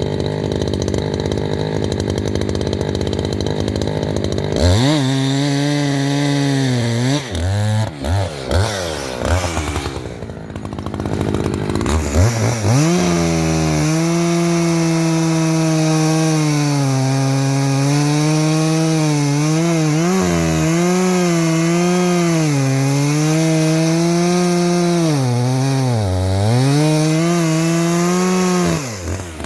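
Two-stroke chainsaw revving to full throttle and cutting into a maple trunk during a bore-cut felling. The engine pitch sags and recovers as the chain bites, eases off briefly about ten seconds in, then holds a long steady cut with occasional dips under load before dropping away near the end.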